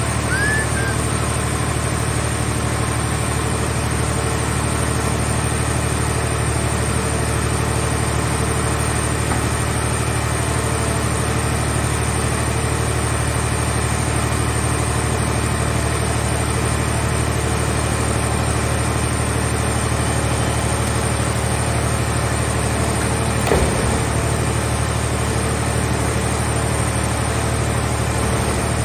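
Steady, even running of a car-shell scrap baler's engine and hydraulic power unit, with a single knock about three-quarters of the way through.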